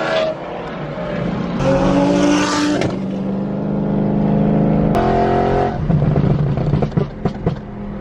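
Car engine pulling hard under acceleration, heard from inside a moving car. The note rises, then drops at gear changes about three and six seconds in, with a few short sharp cracks near the end.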